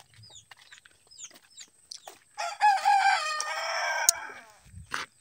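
A rooster crowing once, a loud call of about two seconds starting about halfway through, with faint short chirps before it.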